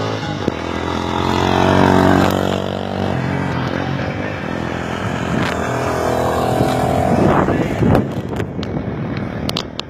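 Motorcycle engines running on the track, rising in pitch and loudest about two seconds in as a bike accelerates, then rising again about seven seconds in. A few sharp clicks come near the end.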